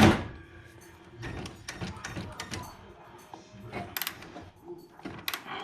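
Hand tools and car parts clicking and clattering as a headlight's fasteners are worked on, opening with a loud clatter and followed by scattered small clicks and knocks.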